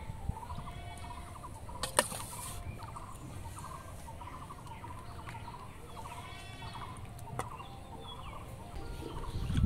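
Chickens clucking over and over in short calls, with two sharp clinks of a steel ladle against a steel bowl.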